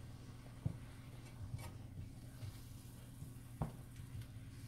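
Silicone spatula stirring and scraping moist coconut mixture in a nonstick frying pan, with two short knocks of the spatula against the pan, one under a second in and one near the end. A steady low hum runs underneath.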